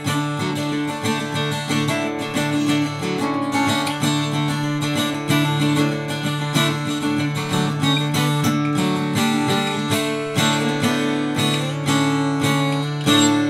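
Acoustic guitar music: a quick run of picked notes, with a louder chord struck near the end that rings on.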